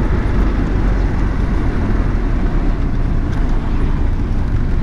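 Steady wind buffeting and road noise on the microphone of a moving Italika DS 150 scooter, loud and rumbling with no clear engine note standing out.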